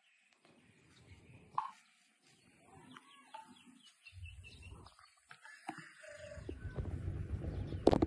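Rooster giving short, sparse clucks, with faint small-bird chirps a few seconds in. A low rumbling noise builds up near the end.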